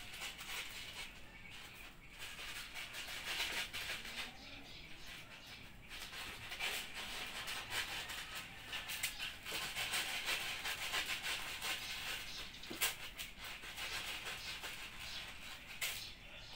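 Plush electric flopping fish toy flapping and rustling against fabric in uneven bursts, with a few sharp clicks.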